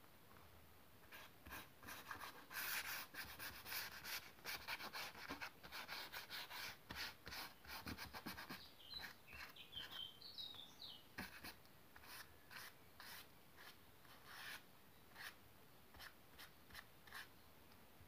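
Large bristle brush loaded with India ink swept across sketchbook paper in broad strokes: a run of short, irregular rasping strokes, busiest in the first half and thinning out in the last few seconds.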